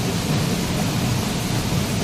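Waterfall: a steady rush of falling water, heaviest in the low rumble and spread evenly up into the hiss.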